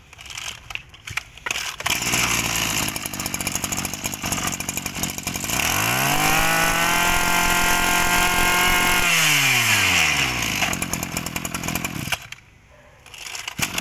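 Small 20cc two-stroke brush cutter engine pull-started, idling, then revved up to high speed for about three seconds and let back down to idle. It cuts out briefly near the end.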